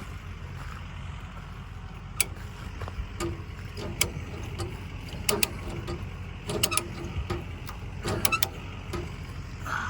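Tire chains clinking and clanking in a series of short, sharp metallic knocks as they are tugged to check their tightness, over the steady low rumble of an idling vehicle engine.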